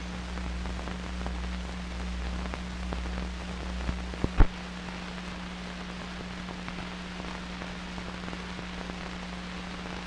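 Run-out of a 16mm film soundtrack with no programme on it: a steady low hum under a fine crackle of scattered clicks, with one loud pop about four and a half seconds in.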